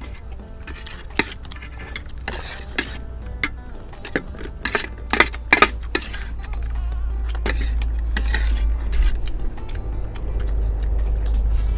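Eating utensils clinking and scraping against bowls in quick, irregular strikes as rice is eaten fast.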